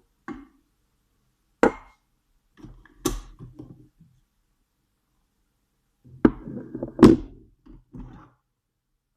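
Kitchen things being handled: a few separate sharp knocks, then a short cluster of knocks and clatter near the end.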